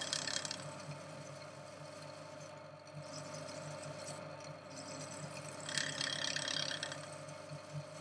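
Small hand wire brush scrubbing old Loctite off the threads of a metal air-hose quick coupler held in a lathe chuck. The scratching is faint, with a short louder burst about six seconds in, over a faint steady hum.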